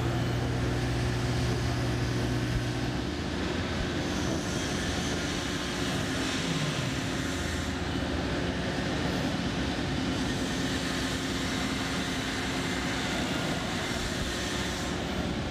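Steady machinery noise of a building site under construction, with a low hum that drops out about three seconds in.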